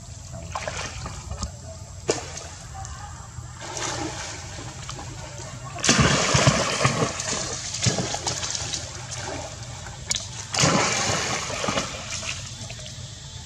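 Water splashing and sloshing as a monkey moves about in a shallow pool, with two louder stretches of splashing, about six and ten and a half seconds in.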